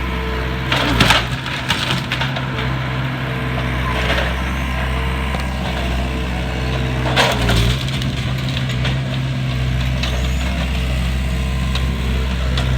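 A wooden structure cracking and splintering as it is pushed over by a heavy machine, with loud bursts of breaking timber about a second in and again about seven seconds in, over the machine's steady engine drone.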